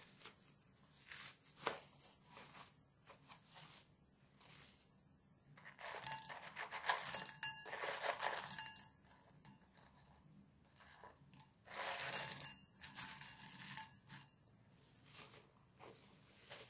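Plastic film crinkling as a tray of raisins is handled, and two spells of raisins pouring into a ceramic bowl, about six and twelve seconds in, clattering against it and making it ring faintly.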